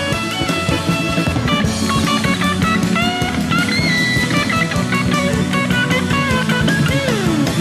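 Instrumental passage of a 1978 power-pop rock song. A guitar plays a melodic lead with bent notes and a long downward slide near the end, over drums and a steady low bass line.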